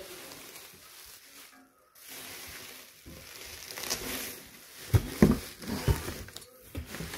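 Bubble wrap rustling and crinkling as a stainless steel exhaust pipe is handled in its packing box, with a few low thumps about five seconds in.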